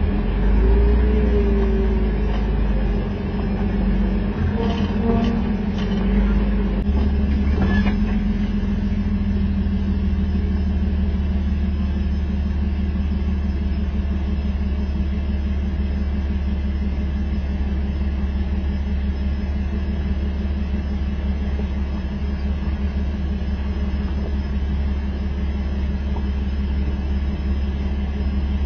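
Jeep engine running steadily, a low drone whose pitch shifts about seven seconds in, with a few brief knocks in the first eight seconds.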